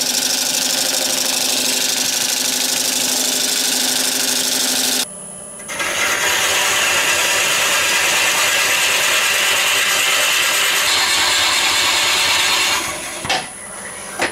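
Woodturning lathe running as the resin-and-golf-ball blank is worked: a steady hum with a hiss over it. It breaks off briefly about five seconds in, comes back as a harsher hiss, and dies down near the end with a single sharp knock.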